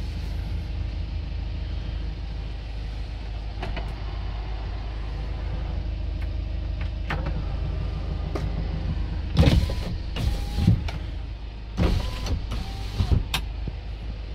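Kia Bongo III truck engine idling steadily, heard from inside the cab. It has just been started. From about two-thirds of the way in, several loud knocks and clunks sound over it.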